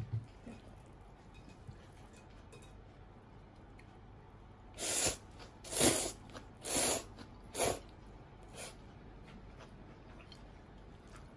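A person slurping chilled ramen noodles: quiet at first, then four short, airy slurps in quick succession about halfway through, and a fainter one just after.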